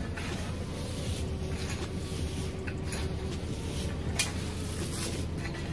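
Shovels and a pitchfork digging into and tossing loose wood chips, with scattered scraping and crunching and one sharper knock about four seconds in, over a steady low rumble.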